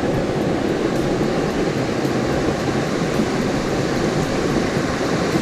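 Steady rushing noise, even in level, with no distinct events.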